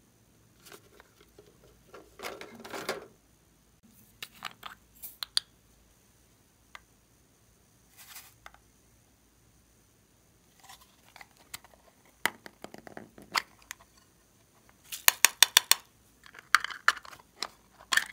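Close-up handling sounds: a tool scraping pressed eyeshadow from a plastic palette, then an apple-shaped plastic case being handled and opened. Scattered light clicks and rustles, with a quick run of sharp clicks and snaps late on as the case comes open.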